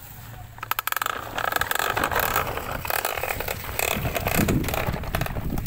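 Plastic wheels of a large toy dump truck rolling over gravel and grit, a dense run of irregular clicks and scraping over a low rumble.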